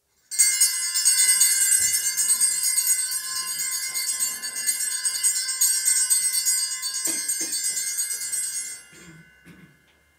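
Sanctuary bells, a cluster of small altar bells, shaken in a continuous bright jingle for about eight seconds, then stopped and left to ring away. They are rung to signal the start of Mass as the priest enters.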